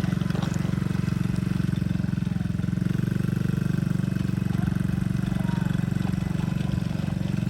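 Tao 110cc ATV's small single-cylinder four-stroke engine running steadily, its pitch wavering slightly as the throttle changes.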